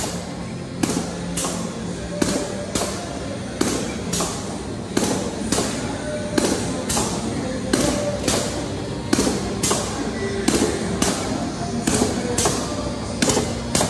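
Background music with a steady beat of about two sharp strokes a second.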